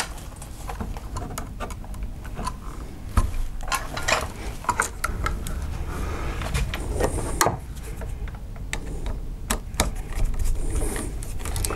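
Scattered small clicks and scrapes of hands working a three-way light switch, bending wires and fastening them under its brass terminal screws with a screwdriver.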